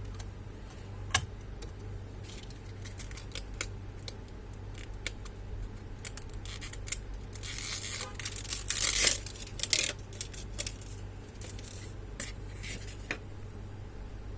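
Scattered small clicks and taps as parts of an all-in-one computer are handled during disassembly, with a stretch of scraping, tearing noise about eight to ten seconds in, over a steady low hum.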